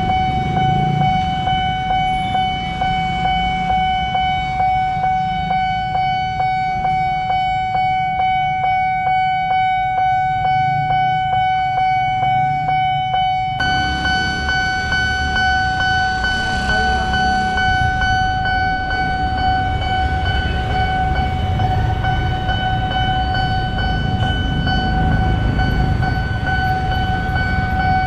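Railway level-crossing warning bell ringing in a fast, steady, pulsing rhythm, over the low rumble of motorcycle engines waiting at the crossing. About halfway through it changes abruptly to a second crossing's bell with a slightly different tone.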